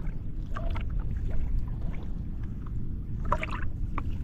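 Steady low rumble of wind and choppy sea water around a small boat, on an action camera's microphone, with a few short faint clicks and squeaks, the loudest cluster about three seconds in.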